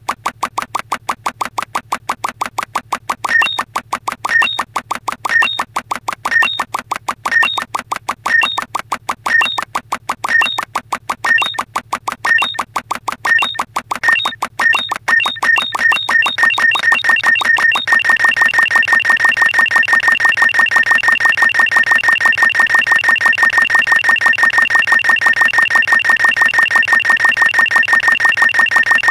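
Synthesized sound effects: fast, steady electronic ticking. A high beep joins a few seconds in at about one a second, repeats faster and faster, and about two-thirds of the way through merges into one continuous high tone over the ticking.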